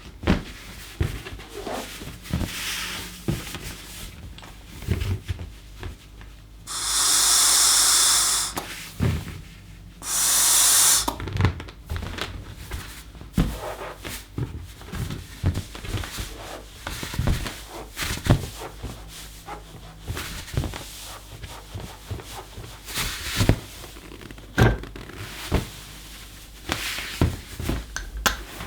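Rubber balloon being stretched and handled, with rubbing, squeaks and small knocks throughout. Twice, at about seven and ten seconds in, comes a long rush of breath as air is blown into the balloon to inflate it.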